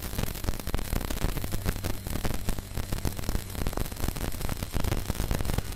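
Stick-welding arc from an ESAB Xpert Weld 200 single-phase inverter welder, the electrode burning along a steel plate with a dense, steady crackle over a low steady hum. The arc is running evenly, which the welder praises as burning smooth as water.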